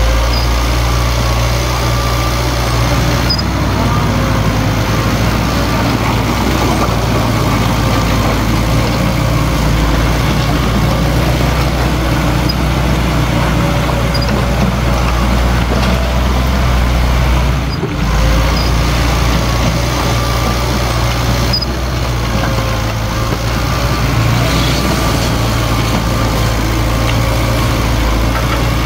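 Heavy diesel engine of earthmoving machinery running steadily, its low hum shifting pitch a few times, with a brief drop in loudness about eighteen seconds in.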